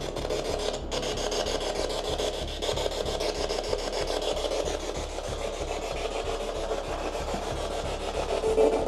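Steady rasping static with a fast, even pulsing.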